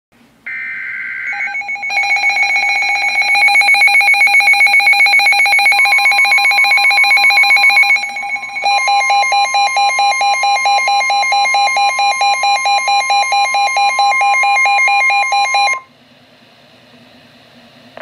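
Midland NOAA weather alert radio sounding its alarm for a flash flood warning: a loud, rapidly pulsing electronic alarm that changes pattern about nine seconds in. A steady tone near 1 kHz, the weather service's warning alert tone, joins about six seconds in, and the whole alarm cuts off suddenly about sixteen seconds in.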